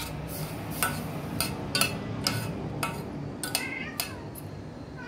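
Cats meowing for mackerel, with one clear falling meow about three and a half seconds in. A metal spoon clinks repeatedly against a steel pot as rice soaked in mackerel water is stirred.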